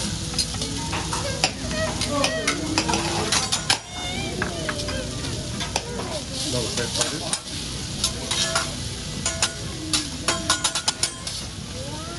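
Chopped vegetables sizzling on a hot steel teppanyaki griddle while metal spatulas scrape and click against the steel to toss them, in irregular quick strokes. The sizzle swells about six seconds in.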